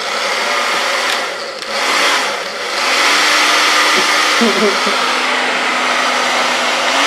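Handheld hair dryer blowing air, a steady rush with a faint motor hum under it. It dips for about a second around two seconds in, then blows steadily again.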